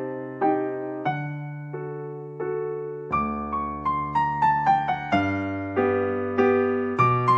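Background music: a gentle electric piano melody over held bass notes, with the notes coming faster in the second half.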